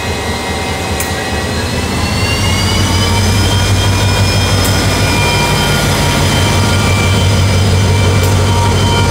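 KiwiRail DFB class diesel locomotive passing close by at low speed: a steady deep engine drone topped by a whine that rises in pitch about two seconds in, then holds. It grows louder as the locomotive draws alongside.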